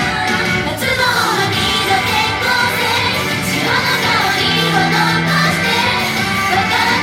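Japanese idol-pop song performed live: female voices singing over a loud backing track.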